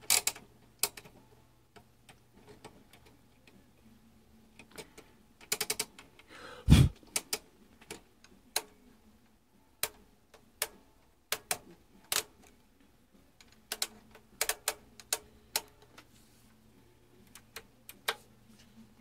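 Irregular clicks of a Tektronix 465 oscilloscope's front-panel rotary switches and lever switches being turned and flipped by hand. About seven seconds in comes one heavier thump.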